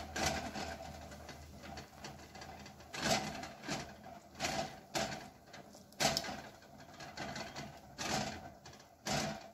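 A silicone spatula stirring noodles in broth in a stainless steel pot, with irregular short scraping and swishing strokes against the pot.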